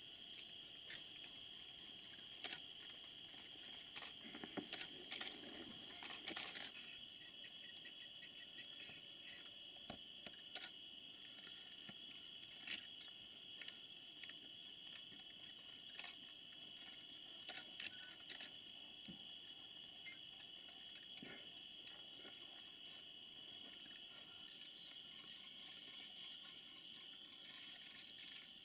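Night insect chorus: a steady high-pitched trill in two pitch bands, the highest stopping about four seconds before the end as a slightly lower chorus takes over. Scattered faint clicks.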